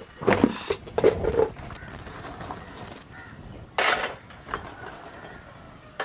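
Large plastic tarpaulin rustling and crackling as it is pulled and shaken, in several short loud bursts.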